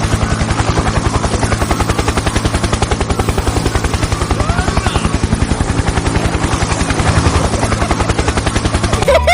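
Helicopter rotor chopping in a fast, even beat over a steady low hum, cutting off sharply at the end.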